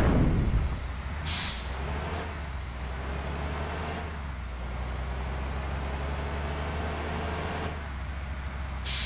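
Bus diesel engine running with a steady low rumble, which swells loudly right at the start. Short air-brake hisses come about a second in and again near the end.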